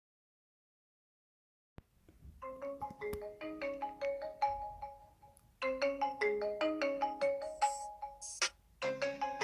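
Mobile phone ringtone: a short marimba-like melody that starts after a second or two of silence and repeats, looping about every three and a half seconds.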